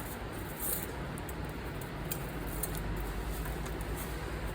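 Steady low background hum with a few faint light clicks and ticks.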